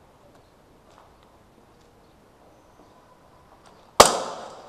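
One sharp, loud bang from gas-powered airsoft gear about four seconds in, ringing on for more than half a second in the bare concrete rooms. Before it, only faint scuffs and ticks.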